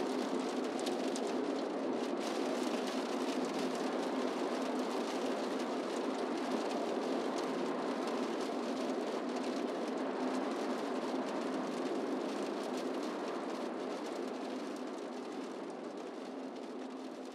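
Road noise of a car driving at speed on a highway, heard from inside the cabin: a steady rush of tyres and wind with a faint hum, fading out near the end.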